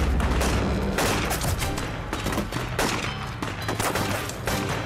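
Film battle sound effects: a dense fusillade of many guns firing, shots overlapping rapidly throughout.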